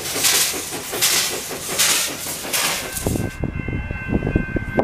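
A narrow-gauge steam locomotive working, its exhaust chuffing in rhythm with a hiss of steam. After about three seconds this cuts off abruptly to a low, uneven rumble of a train with a few steady high tones over it.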